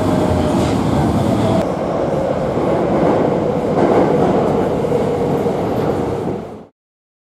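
Tokyo Metro subway train running: first heard from the platform as it moves through the station, then from inside the moving car as a steady rumble, fading out about six and a half seconds in.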